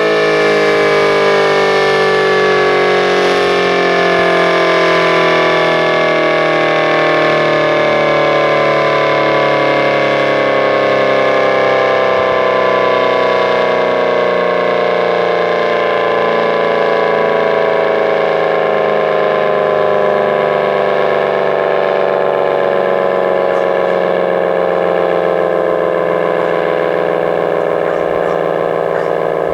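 ACA Banshee 115 electro-mechanical siren winding down, its loud tone falling slowly and steadily in pitch, with a steady low hum underneath.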